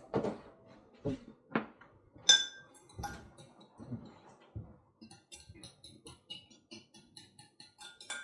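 A fork stirring a liquid mixture in a small glass jug: a few separate knocks and ringing clinks, then from about halfway a quick, even run of clinks, about four or five a second, as the fork beats against the glass.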